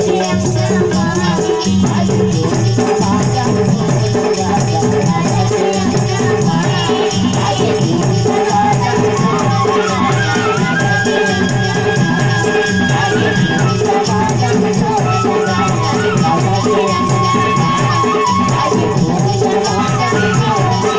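Live devotional music: a harmonium holds long notes over a steady hand-drum (tabla) rhythm, with a constant shaken, jingling percussion on top.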